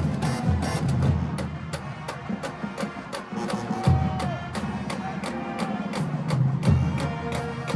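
HBCU marching band playing: a drumline beats out a fast, dense rhythm with heavy bass drum hits under sustained brass.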